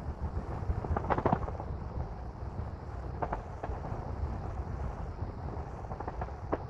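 Coastal wind buffeting the microphone with a steady low rumble, broken by a few short clicks or knocks about a second in, in the middle, and near the end.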